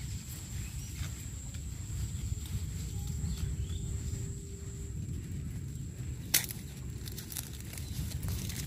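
Maize plants' leaves and stalks rustling and brushing as a person moves through the crop and handles the ears, with a low rumble of wind on the microphone. A thin steady high-pitched tone runs throughout, and there is one sharp click about six seconds in.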